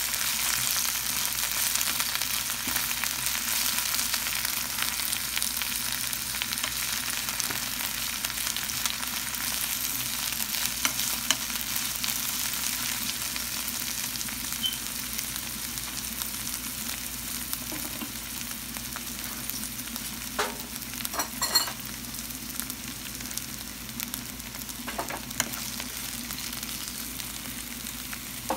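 Spinach sautéing in a pan on medium-low heat, a steady high sizzle that slowly dies down as the leaves wilt. A few short knocks of a utensil come about three-quarters of the way through.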